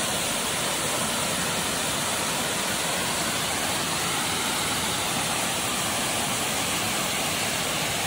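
Waterfall cascading over rock ledges: a steady, even rush of falling water.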